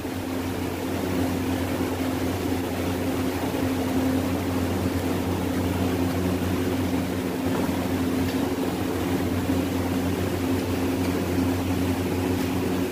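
A steady machine drone: a low hum with a held higher tone over a noisy hiss, unchanging throughout.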